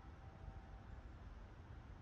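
Near silence with a faint low rumble; the last ring of a bell dies away about a second in.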